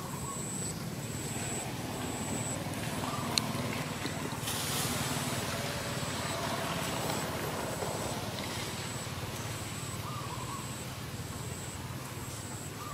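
Steady outdoor background with a low rumble like distant traffic. Over it a thin, high chirp repeats about every 0.7 s, and a few faint short calls come and go. A single click sounds about three seconds in.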